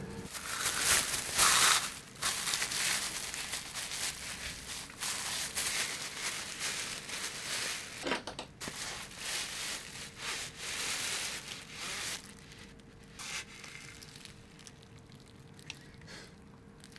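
Plastic bag crinkling and rustling around a grease-gun cartridge as the hand squeezes grease out of it. The handling is busiest through the first two thirds, then drops to faint, scattered rustles.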